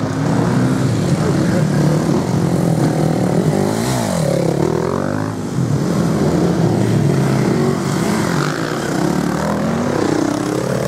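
Enduro dirt bike engines revving on a muddy hill climb, the pitch dropping and rising again about four seconds in and once more near the end.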